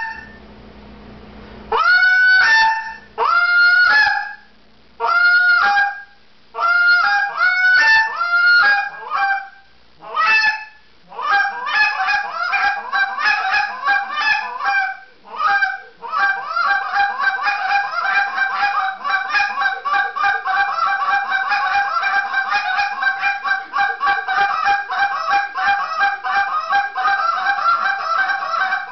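Buckeye burl and black acrylic short-reed contest goose call blown through a calling routine. It starts with separate honks a second or so apart, each breaking sharply from a low note to a high one. The notes then come shorter and quicker, and about halfway through they run into a fast, continuous string of clucks.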